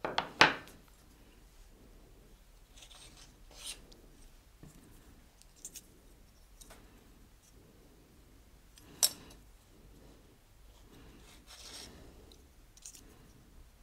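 Faint, intermittent scraping and rubbing as a small modelling tool works flower paste against a metal fern cutter on a board, with a knock at the start and a sharp click about nine seconds in.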